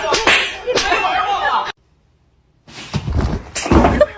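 People's voices, cut off suddenly into about a second of dead silence, then low thuds with more voices.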